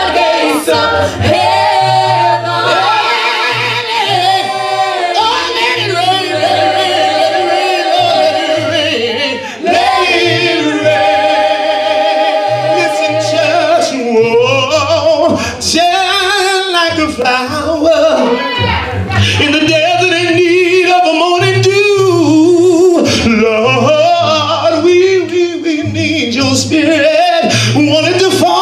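Gospel praise team of men and women singing in harmony through microphones, holding long notes over a low bass that comes and goes.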